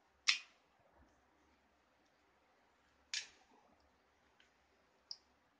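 Three short metallic clicks from a thin steel tool and the piston rings against the bottom edge of a Yezdi/Jawa cylinder barrel, as the rings are pressed in and the barrel is eased down over the piston. The first, just after the start, is the loudest; the second comes about three seconds in, and a smaller, higher tick comes near the end.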